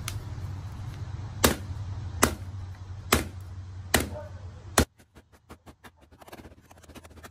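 Rubber mallet pounding paper laid over a leaf on cardboard, five strikes about a second apart, to press the leaf's pigment into the paper. A steady low rumble sits under the strikes and cuts off suddenly just after the last one.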